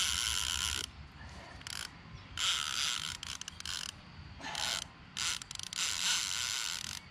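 Baitcasting reel's drag buzzing in stop-start spurts as a big fish, taken for a redtail catfish, pulls line off against a drag set about as tight as the line will bear.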